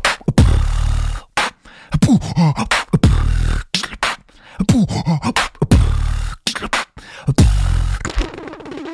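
Beatboxing: mouth-made percussive clicks and snare-like hits with falling vocal glides and a deep bass boom, the same phrase repeating about every two and a half seconds.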